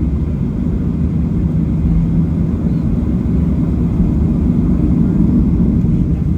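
Steady low rumble of a Boeing 737-800's CFM56 jet engines and airflow, heard inside the passenger cabin.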